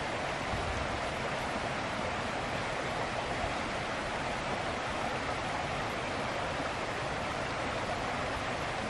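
Steady rushing of a stream, an even hiss of running water with no breaks.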